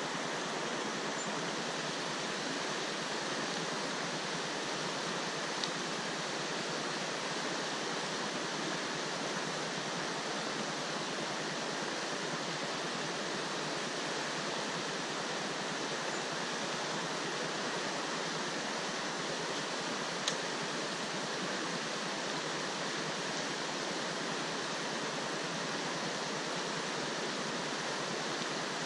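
River water rushing steadily in an even, continuous rush, with two faint ticks, one about a third of the way in and one about two-thirds of the way in.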